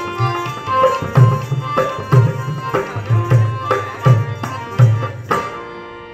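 Rajasthani folk music: a hand drum beats a lively, uneven rhythm of deep strokes over steady held tones. The drumming stops about five and a half seconds in, and only the held tones carry on, more quietly.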